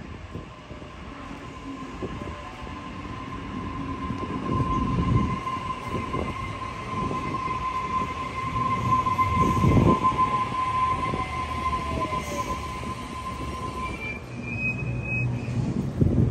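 Sydney Trains Waratah double-deck electric train running along the platform, louder as it comes alongside, with a steady high whine and a second whine that falls in pitch about two-thirds of the way through. Low rumbling thuds from the wheels, and a short high squeal near the end.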